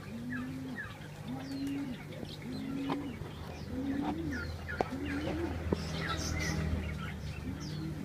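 Caged doves cooing, one short low coo that rises and falls about once a second, with small birds chirping and twittering over it.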